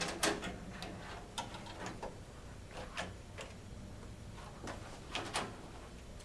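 Scattered clicks and light knocks of a graphics card being handled and seated into a PCIe slot on a metal expansion-chassis carrier, over a faint steady hum.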